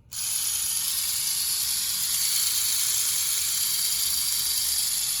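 Small DC motor of a first-generation Dodge Neon power door lock actuator, powered by a 9-volt battery, whirring steadily at a high pitch after switching on suddenly just after the start. This motor whir without the lock moving is the fault the owner traces to a stripped gear in the actuator.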